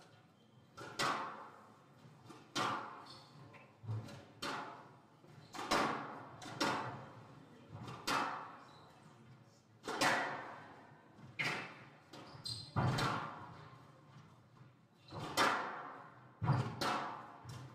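Squash rally: a squash ball struck by rackets and cracking off the court walls. There is a sharp impact roughly every second, each with an echo in the hall.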